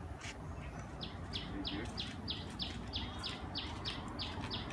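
A bird calling a fast, regular series of short high notes, about three a second, starting about a second in, over a steady low background hum.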